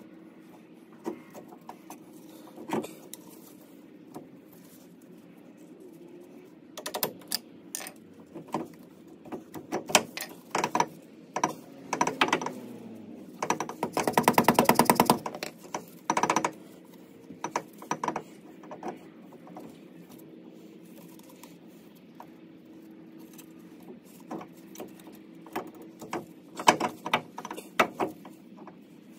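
Metal clinks, knocks and rattles of a Dana 44 differential carrier and its bearing shims being worked into the axle housing by hand, with a quick run of rapid dead-blow hammer taps about halfway through.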